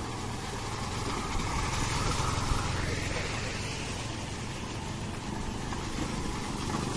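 Small motorcycle engines riding through shallow floodwater on a dirt road: one passes close, louder about two seconds in, and another comes up near the end, with the wash of water under the wheels.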